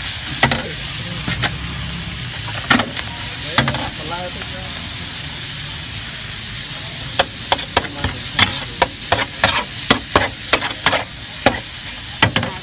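Fried short noodles with bean sprouts, cabbage and chives sizzling on a hot flat griddle while a metal spatula tosses them, scraping and clacking against the griddle. The clacks come quickly one after another in the second half.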